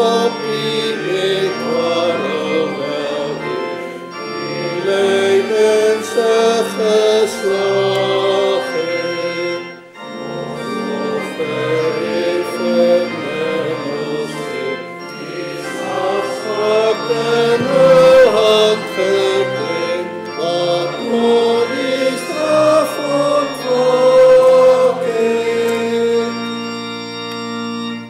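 Church congregation singing a metrical psalm to pipe-organ accompaniment. There is a short break between phrases about ten seconds in, and near the end a final chord is held and then stops.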